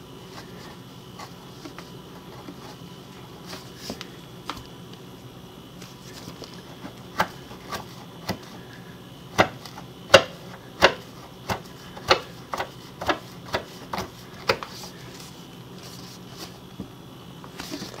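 Sharp, irregular metal clicks and taps, about one or two a second and concentrated in the middle of the stretch, as the refrigerator's threaded front leveling leg is turned by hand under the frame.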